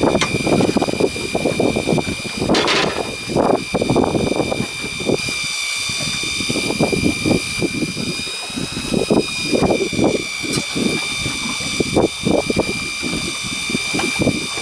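Strong wind buffeting the microphone in irregular gusts, over a steady high whine, with a short sharp noisy burst about three seconds in.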